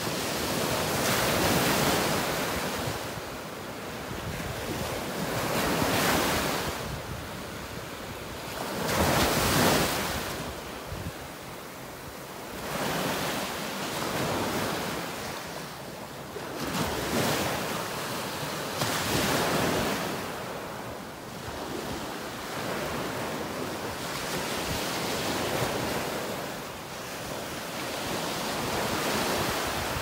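Small waves breaking and washing up on a sandy beach, the surf swelling and easing every few seconds, with some wind on the microphone.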